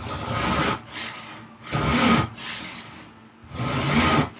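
Western hand saw sawing through a wooden board by hand: three loud cutting push strokes about one and a half to two seconds apart, each followed by a quieter return stroke.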